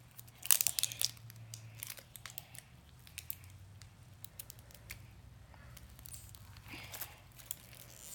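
Crinkling and tearing of a foil toy wrapper being unwrapped by hand, loudest about half a second to a second in, then quieter rustling and small clicks of the contents being handled.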